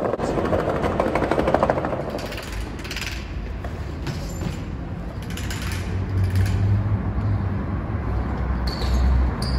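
Steady low rumble of urban street noise, growing deeper and louder in the last few seconds, with a few soft hissing swells.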